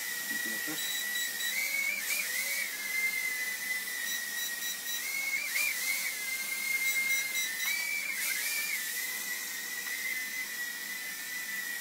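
Furibee H801 mini quadcopter's small motors and propellers whining at a steady high pitch with a hiss, the pitch rising and wobbling briefly three times as the drone is steered around.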